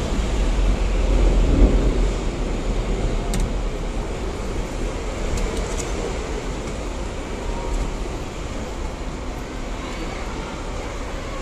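Hong Kong double-decker tram running, heard on board the upper deck: a steady low rumble of wheels on the rails, with street traffic behind it. The rumble is loudest for the first couple of seconds, then eases to a steady level.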